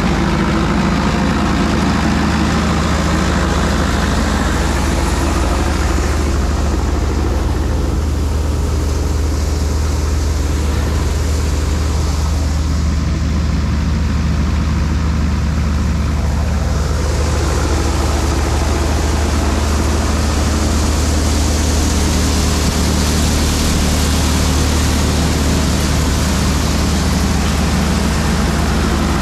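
Sonalika DI-55 tractor's diesel engine running steadily under load, driving a wheat thresher whose drum and blower whir as straw and chaff are blown out. The higher hiss thins out for about ten seconds in the middle, then comes back.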